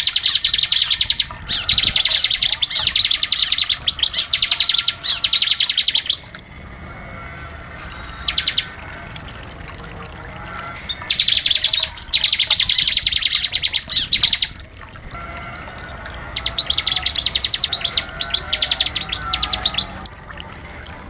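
Bar-winged prinia (ciblek) singing its fast, rattling trilled song, the 'ngebren' style, in bursts of one to two seconds separated by short pauses, with a longer lull in the middle.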